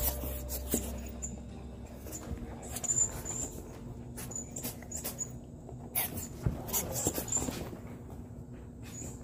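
Two dogs moving about right by the microphone: irregular scuffs and knocks, with a few louder bumps about three, six and seven seconds in.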